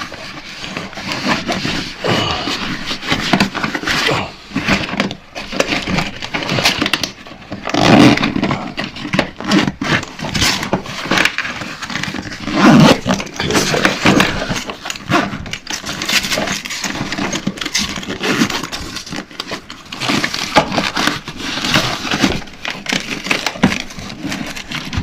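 Handling noise: rustling, scraping and irregular knocks of plastic and fabric as a battery bag and its wiring are pushed into the plastic body of a ride-on toy car. The two loudest knocks come about 8 and 13 seconds in.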